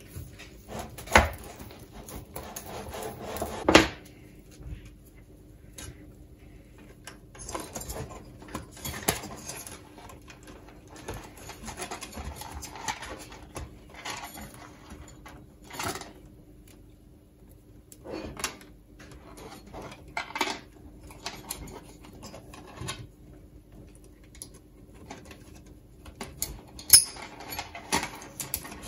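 Hands working bundles of loose power-supply wires: rustling and scraping, with irregular clicks and knocks of the wires and hands against a computer power supply's perforated metal case. The sharpest knocks come about a second in, near four seconds and near the end. A faint steady hum sits underneath.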